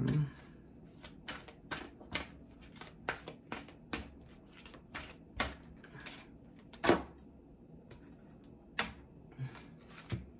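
A deck of angel cards being shuffled by hand: a run of soft, irregular clicks and snaps as the cards slide and tap together, with one louder snap about seven seconds in.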